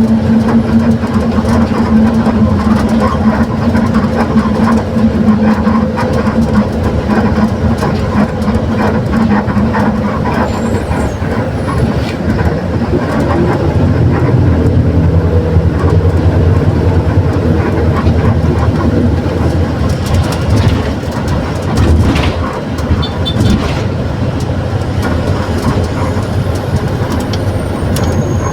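Mercedes-Benz OF 1721 BlueTec 6 bus under way, heard on board: the diesel engine and drivetrain running, with a steady whine through the first third that is typical of a growling differential. After that the engine's lower note grows stronger, and the body gives off scattered light rattles.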